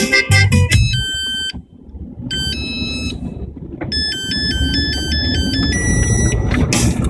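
An electronic melody of steady beeping tones that jump in steps, played in short phrases with a brief pause about two seconds in, over the low rumble of the car driving on the gravel track. Band-style background music plays at the start and returns near the end.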